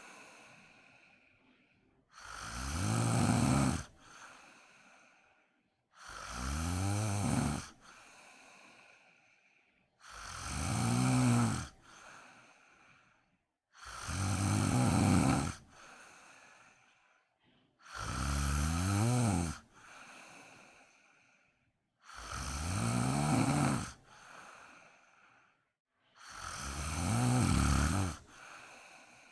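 A person snoring loudly in a slow, regular rhythm: about one snore every four seconds, seven in all. Each loud rasping snore is followed by a softer breath out.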